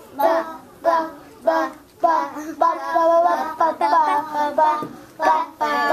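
A group of children's voices chanting the letter B's sound, 'buh', in short syllables about every half-second, then running into a sing-song chant from about two seconds in.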